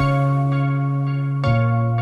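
Background music: long held instrumental notes, with a new note or chord struck about one and a half seconds in.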